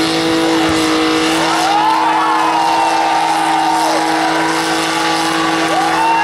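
Cars doing burnouts: engines held at steady high revs while the spinning tyres squeal in wavering tones, the squeal coming in from about a second and a half in and again near the end.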